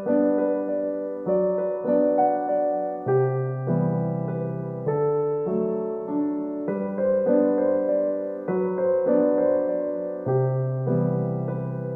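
Background music: a gentle piano or electric piano playing slow, repeating chords.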